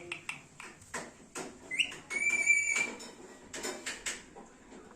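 Indian ringneck parrot calling: a scatter of short sharp clicks and chirps, then one held high whistled note of about half a second a little after two seconds in.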